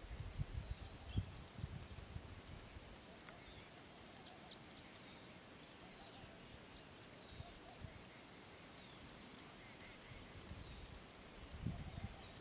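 Quiet open-air ambience with faint, scattered short high bird chirps and whistles from other birds. Low rumbling buffets of wind on the microphone come in the first couple of seconds and again near the end.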